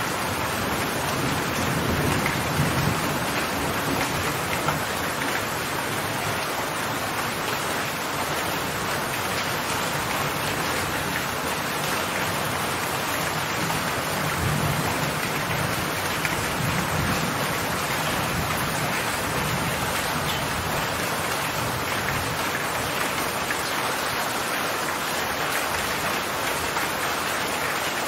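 Steady heavy rain falling, a dense, even hiss with a few low swells underneath.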